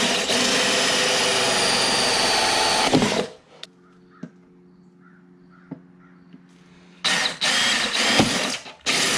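A cordless drill driving a 1-inch hole saw through a plexiglass sheet, a loud grinding whine of bit on plastic. It cuts for about three seconds and stops. After a pause with only a faint hum and a few light clicks, a second cut starts about seven seconds in.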